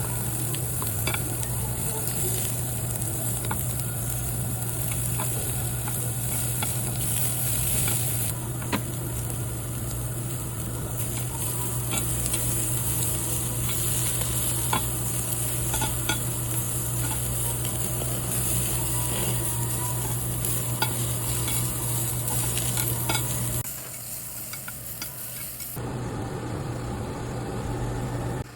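Slices of 1++ grade hanwoo beef sizzling while grilling, with a steady hiss and scattered sharp pops and crackles of spitting fat, over a steady low hum. About 24 seconds in, the hum stops and the sizzling turns quieter.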